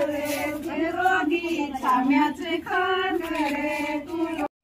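Women singing a devotional kirtan song together, one held melody line. It cuts off abruptly near the end.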